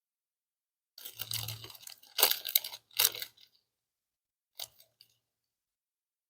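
A person chewing crunchy food close to the microphone, in three short bouts from about a second in to just past three seconds, followed by a faint click.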